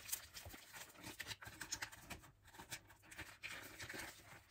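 Faint crinkling and light tapping of a dry sausage casing being pulled off its roll and handled, with scattered small clicks.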